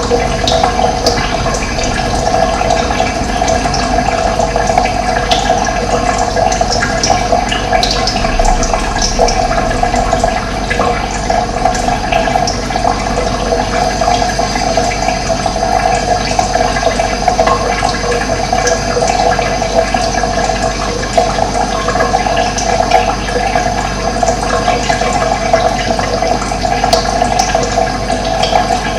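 Running water rushing steadily and evenly, with no breaks.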